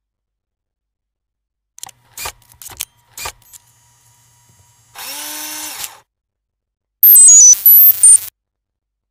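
Animated-intro sound effects: a few sharp clicks, a whoosh lasting about a second, then a loud run of high electronic blips that step down in pitch and jump back up.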